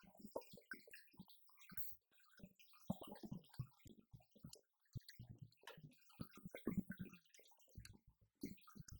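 Quiet, irregular taps and thuds of drumsticks striking electronic drum pads, in quick uneven runs.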